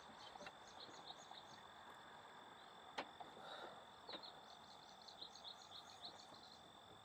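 Near silence, with faint, high insect chirps repeating over a thin steady high tone, and a faint click about three seconds in and another about four seconds in.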